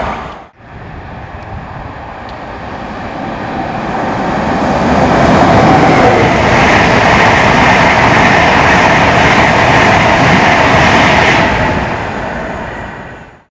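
Express passenger train passing at speed: the rush of wheels on rail builds for several seconds, stays loud as the train goes by, then fades as it runs away down the line, and cuts off suddenly near the end.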